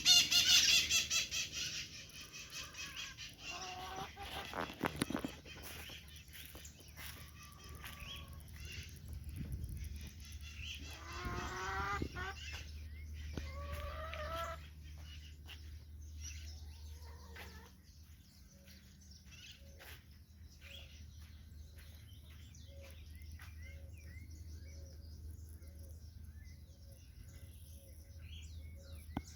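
Chickens clucking and calling, with smaller birds chirping through it. The loudest part is a short, loud burst right at the start, and a few longer calls come in the first half.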